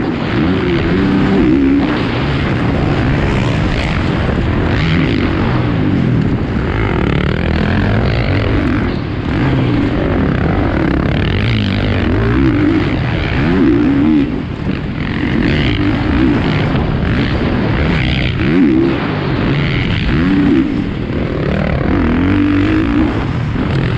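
450cc four-stroke motocross bike engine heard from on board, revving hard and dropping off over and over as the rider works the throttle through jumps and turns, its pitch rising and falling every second or two.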